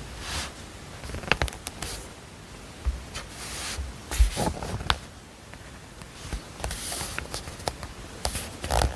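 Rustling swishes and scattered small clicks and knocks, like paper and objects being handled, over a faint steady hiss.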